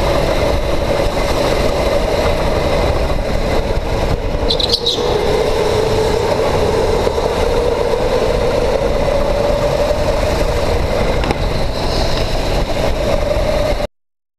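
Electric go-kart running at speed, its motor whine heard from a camera mounted on the kart over heavy rumble. The whine dips in pitch about five seconds in and climbs back, and a short high squeal comes at about the same point. The sound cuts off suddenly near the end.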